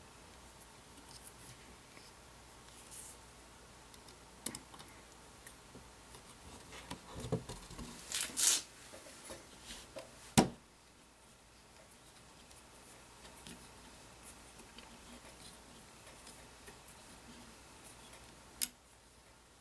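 Small metal clicks and scrapes of hex keys working the retaining screws of KNS non-rotating trigger and hammer pins in an AR-15 lower receiver, holding one side while tightening the other. A brief scrape comes about eight seconds in, a sharp click about halfway through and another click near the end.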